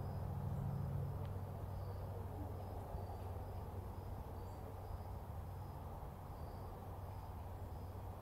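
Woodland ambience: an insect chirping in short, evenly repeated high notes, over a steady low rumble.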